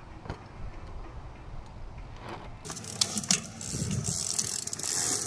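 BMX bike coasting on asphalt, its rear hub ticking and its tyres hissing. It is faint at first and louder in the second half as the bike rolls close.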